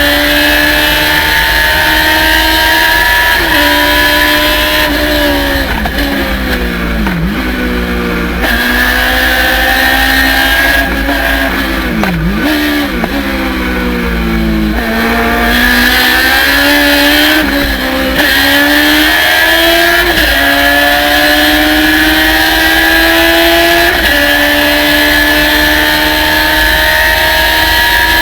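Race car engine under hard acceleration, its pitch climbing through the gears with an upshift every three to four seconds. About five and eleven seconds in, the revs fall away twice as it lifts off and downshifts for corners, then it pulls hard up through the gears again.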